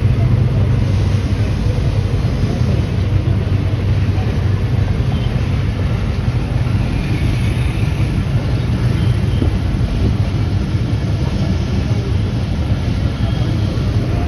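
Steady running of a motor vehicle's engine with a constant low hum and road noise.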